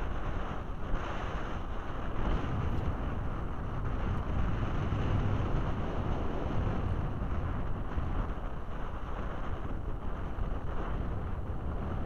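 Gusty wind buffeting the camera microphone, a steady low rumbling noise throughout.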